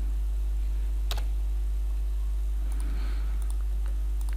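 A few computer clicks: one sharp click about a second in and several fainter ones later, over a steady low hum.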